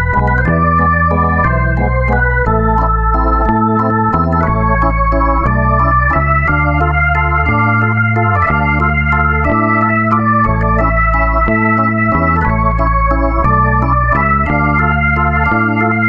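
Instrumental ringtone music played on an organ-like keyboard: sustained chords over a bass line, changing about once a second.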